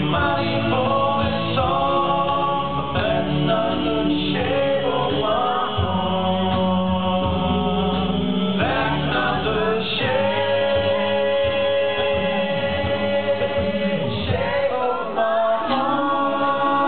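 Male a cappella vocal group singing live through handheld microphones, several voices holding chords over a sung bass line.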